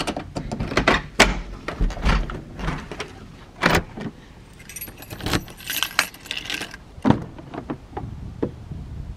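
A bunch of keys jangling while door handles and locks are worked, with a series of sharp clicks and knocks as doors are unlocked and opened. The keys jingle most densely about five to six and a half seconds in.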